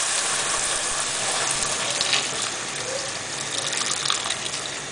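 Water pouring in a steady stream from a kettle into a cast-iron casserole pot, filling it over browned beef and gradually getting quieter.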